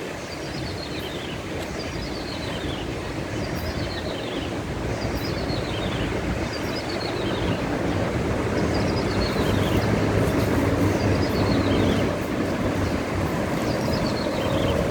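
Ciblek sawah (klik-klik bird) singing vigorously, a short falling call repeated about once a second, over loud wind rumble on the microphone that grows stronger.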